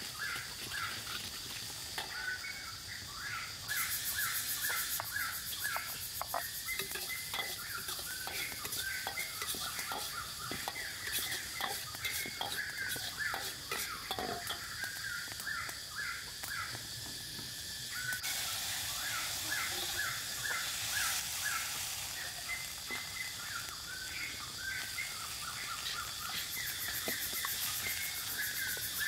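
Chopped chili and aromatics frying and sizzling in oil in a steel wok, with a metal ladle stirring and scraping the pan, while birds chirp over and over and a steady high drone runs underneath.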